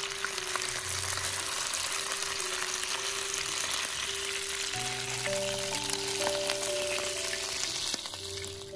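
A whole fish sizzling as it fries in hot oil in a wok, a dense steady hiss with a few small pops. The sizzle dies down near the end as the fish is lifted out of the oil.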